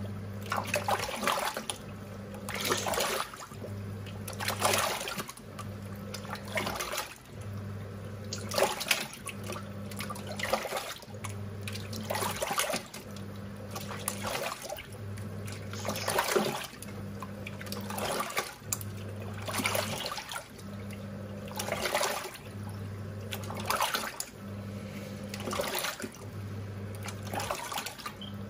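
Top-loading washing machine agitating its load: the wash motor hums in short strokes that start and stop about every two seconds, and water sloshes and swishes in the drum with each stroke.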